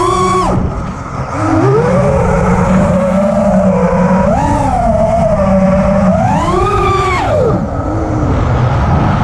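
FPV quadcopter's brushless motors and propellers whining. The pitch swoops up and down with the throttle: a sharp rise at the start, another about four and a half seconds in, and a long swell around seven seconds.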